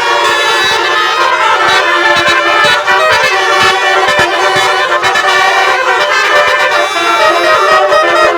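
Basuri telolet bus horn playing a melody, loud and continuous, its brassy trumpet-like notes changing from one pitch to the next.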